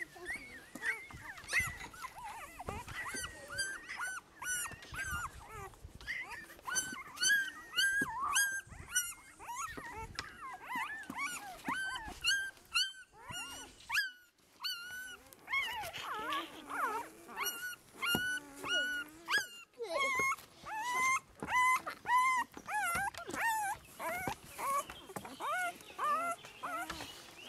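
Newborn Great Pyredane puppies, a Great Dane × Great Pyrenees cross, squealing and whimpering: a stream of short, high squeaks that rise and fall, several a second, with a brief lull about halfway through.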